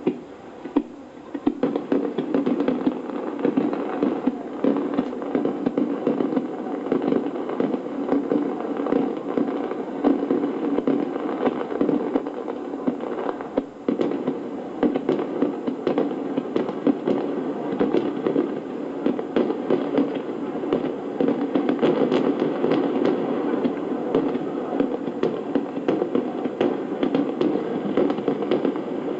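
Aerial fireworks crackling densely and without a break, countless small pops running together, heard through television broadcast sound.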